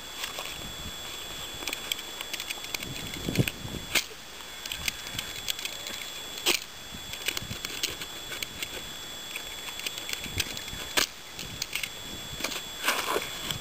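Crackling and rustling of a paperboard milk carton being cut and peeled open by hand from around a tomato seedling, with a few sharp snaps standing out.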